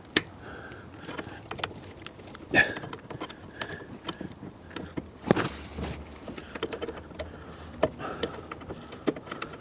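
Pliers working a steel split pin on a caravan jockey wheel's axle: irregular metal clicks and short scrapes as the pin's legs are bent open, with a sharper click about 2.5 s in and another about 5 s in.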